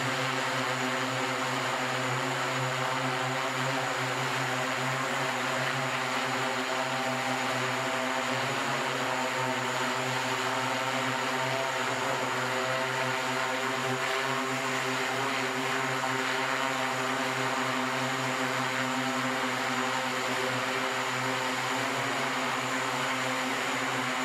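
SkyDrive SD-03 eVTOL's electric multi-rotor propellers humming steadily in flight, a constant propeller drone with no change in pitch.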